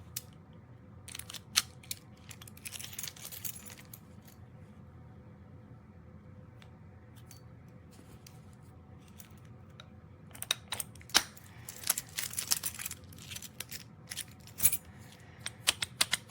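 Sharp metallic clicks and rattles of a steel U-lock and its mounting bracket being handled, in two bouts: from about a second to four seconds in, and again from about ten seconds on.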